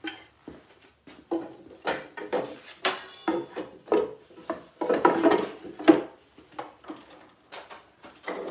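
Irregular knocks, clatter and short scrapes of a wooden drawer and hand tools being handled on a workbench. The sounds are busiest and loudest about five to six seconds in.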